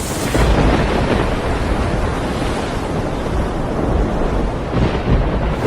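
Storm wind buffeting the microphone over a loud, steady roar of wind-driven water.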